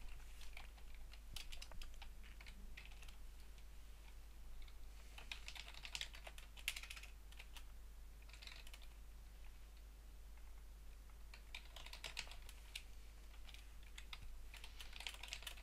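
Computer keyboard typing in short runs of keystrokes with pauses between them.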